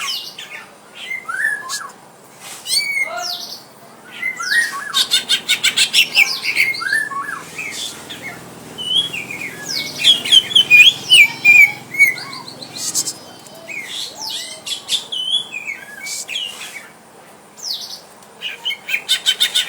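Cucak ijo (green leafbirds) calling at each other in a fight test: bursts of rapid, chattering trills mixed with short whistled chirps that slide up and down, in spells separated by brief pauses.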